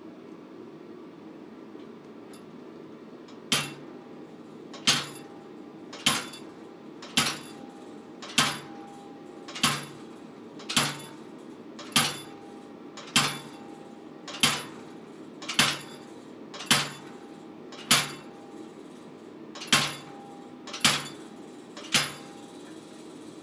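A thin hot chisel driven into a red-hot half-inch steel plate on an anvil, cutting in a line along its edge: about sixteen evenly spaced heavy strikes, a little over one a second, starting a few seconds in. Each strike has a short metallic ring, over a steady low background hum.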